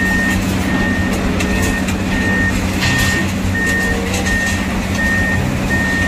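Komatsu hydraulic excavator's diesel engine running steadily as its grapple lifts a forklift. A warning alarm beeps throughout, about three short beeps every two seconds, and there are a few metal knocks about three seconds in.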